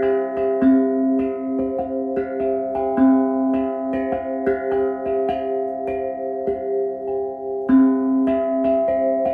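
Instrumental background music: a quick, even run of plucked notes over held, ringing tones.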